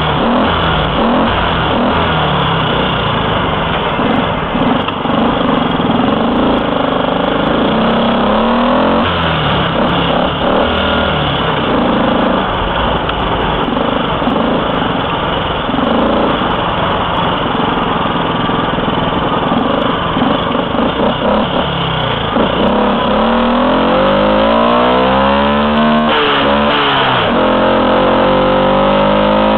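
Honda C100 Cub's small four-stroke single-cylinder engine, with upswept muffler, running while riding. Near the end the engine note climbs as it accelerates, drops suddenly at a gear change, and climbs again.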